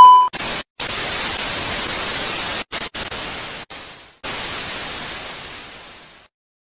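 Loud, even TV-style static hiss, cut by several sudden dropouts to silence. Near the end it fades out.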